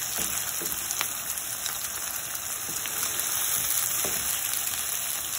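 Raw chicken pieces and chopped onion sizzling in hot oil in a frying pan as the chicken is browned, with a couple of light clicks from the wooden spoon against the pan, about a second in and again near the end.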